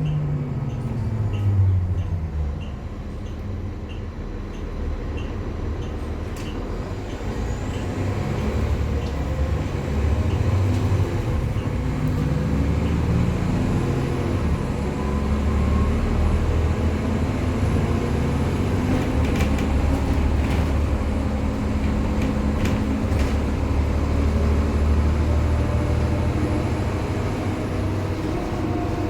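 Nova Bus diesel engine and ZF automatic transmission driving: the engine note falls in the first seconds, then holds and climbs steadily under load, with a thin high whine joining partway through. Light regular ticking is heard in the first few seconds.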